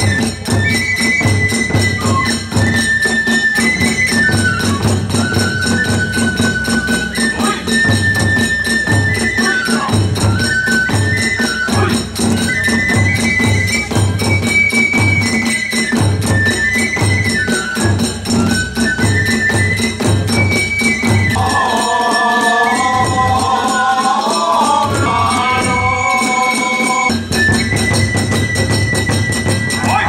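Hiroshima kagura ensemble: a bamboo transverse flute (fue) plays a high, repeating, wavering melody over steady drum beats about twice a second and the constant clashing of small hand cymbals (tebyōshi). Past the twenty-second mark a second, lower melodic part joins for several seconds.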